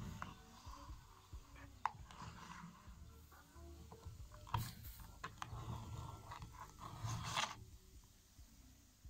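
A heated steel knife blade pressed into a plastic cola bottle, the plastic crackling and clicking as the blade melts through it, with a fizzing hiss from the carbonated cola foaming out at the cut. The crackling and hiss stop about seven and a half seconds in as the blade is drawn away.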